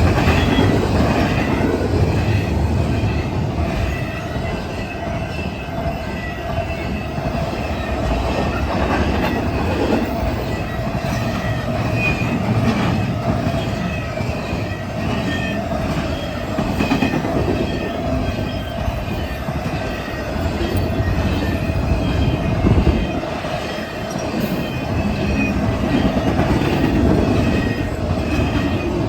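Cars of a fast intermodal freight train rolling past, steel wheels clattering on the rails with a steady squeal over the rumble.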